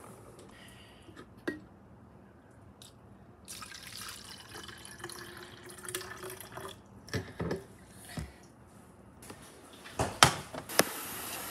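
Water poured from a glass into a lightbulb-shaped drink bottle, splashing for about three seconds from a few seconds in. The pour is followed by a few light knocks of glassware set down on the counter and two sharp clicks near the end.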